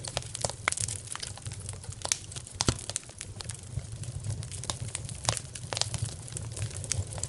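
Wood fire crackling in a fireplace: irregular sharp pops and snaps over a steady low rumble, with a few louder pops about two and a half and five seconds in.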